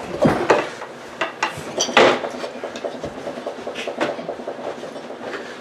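Cutlery and dishes clinking and knocking at a dining table: scattered short clicks and knocks, the louder ones about a quarter second in, at two seconds and at four seconds.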